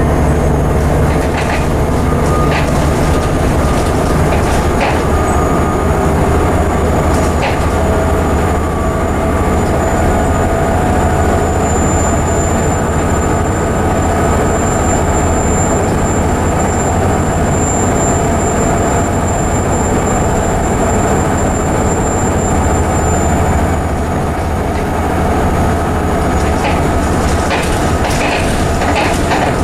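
Volvo B7TL bus's rear-mounted diesel engine running, heard inside the passenger saloon with a steady low hum, road noise and short rattles of the bodywork and fittings. A thin high whine holds for about twelve seconds in the middle.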